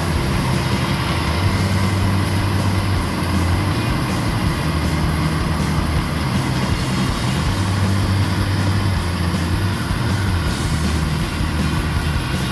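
Rice combine harvester running steadily at work: a diesel engine drone with the even noise of its machinery over it.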